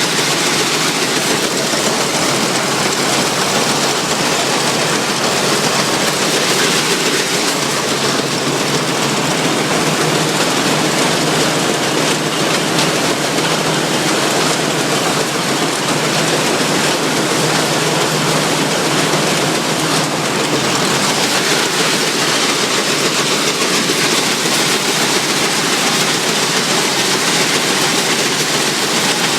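Allis-Chalmers All-Crop 72 pull-type combine running while harvesting wheat: a loud, steady mechanical noise that holds even without a break.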